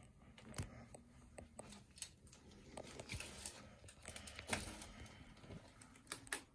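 Footsteps through loose papers and debris on a floor: irregular rustling and crinkling of paper, with a few sharper clicks and knocks, busiest around the middle and near the end.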